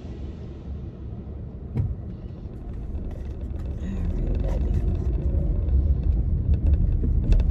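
Car cabin noise heard from inside while driving: a low road-and-engine rumble that grows louder about three seconds in as the car picks up speed. Two sharp clicks, one a couple of seconds in and one near the end.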